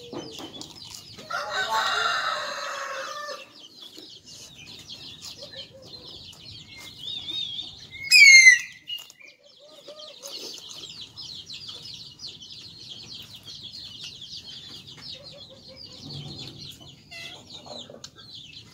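A rooster crows once, a long call of about two seconds starting about a second in, over steady twittering of small birds. Near the middle comes a short, sharp, high squawk, the loudest sound.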